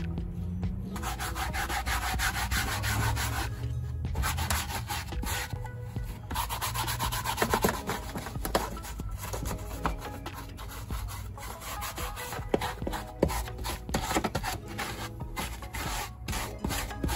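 Rapid, repeated scrubbing strokes over background music.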